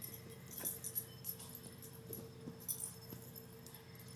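Small dog playing with a plush squeaky toy on carpet, moving and carrying it without squeaking it: faint scattered clicks and rattles.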